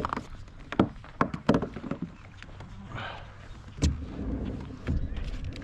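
Sharp knocks and clicks, several in quick succession in the first couple of seconds, then a heavier thump about four seconds in and another near the end, over a low rumble: a just-landed pike and the fishing tackle being handled.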